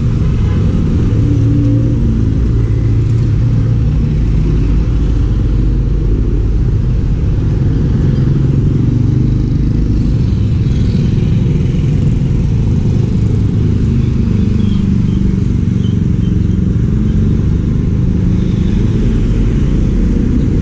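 A motor vehicle's engine and road noise as a steady low rumble with no let-up.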